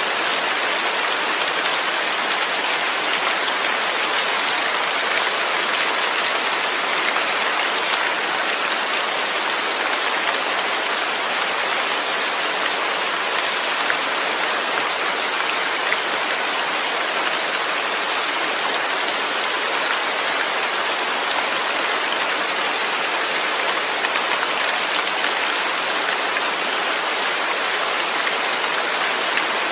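Steady rain falling, an even hiss of many drops on surfaces with no change in strength.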